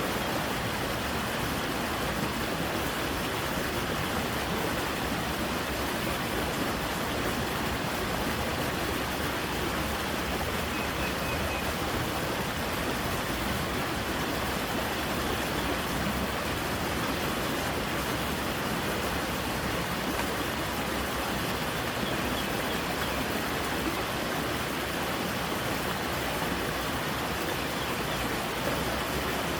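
Creek water rushing steadily over rocks, a constant even rush with no change in level.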